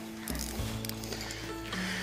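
Background music with held notes that change every second or so.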